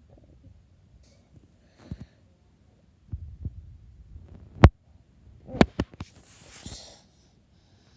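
Close handling noise: low rumbling and dull thumps, then one sharp knock about halfway through and a quick run of three knocks about a second later, followed by a short rustling hiss.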